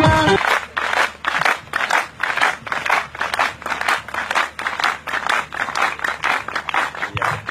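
Crowd clapping: many hands in a dense, uneven patter, starting as the music cuts off.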